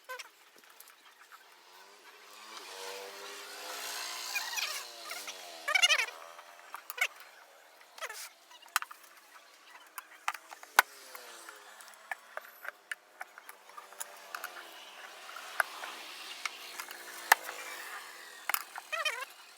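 Tubeless motorcycle tyre being levered onto its wheel rim by hand: the rubber bead squeals and squeaks against the rim in several drawn-out squeals that bend in pitch, with sharp metal clicks and taps from the tyre tools between them.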